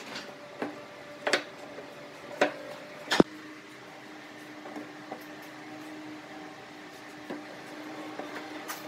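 Pine boards knocking and clattering as they are lifted, stood on edge and set down against steel pipe clamps on a wooden workbench: a few sharp knocks, the loudest about three seconds in. A faint steady hum runs underneath from then on.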